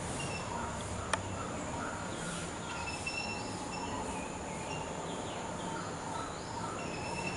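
Birds chirping in short, high repeated notes and a few quick glides, over a steady background hiss, with one sharp click about a second in.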